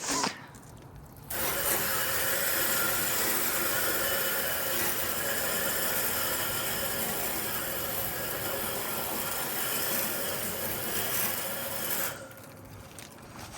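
Garden hose spray nozzle spraying water onto a heat pump's outdoor coil: a steady hiss that starts about a second in and cuts off abruptly near the end, after a short burst at the very start.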